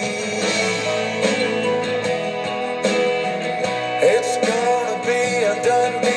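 Background country music with guitar.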